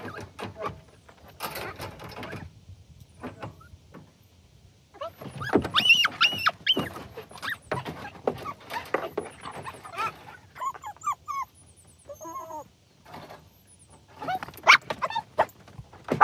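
Dogs in wire crates in the back of a van whining and yelping excitedly as they are let out, with knocks and rattles from the crate doors. The whining is heaviest in the middle of the stretch, with a few sharp knocks at the start and again near the end.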